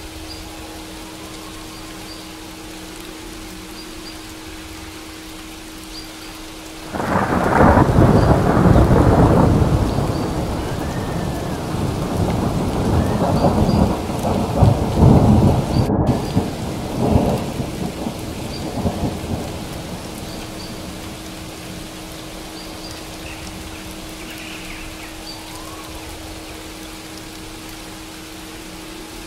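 Steady rain with a steady low tone beneath it. About seven seconds in, a thunderclap breaks into a long rolling rumble that swells again around halfway and dies away over the next several seconds.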